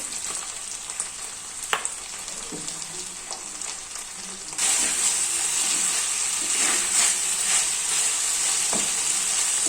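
Chicken and chopped vegetables frying in oil in a frying pan, sizzling, while a spatula stirs and now and then taps the pan. The sizzle gets louder about halfway through.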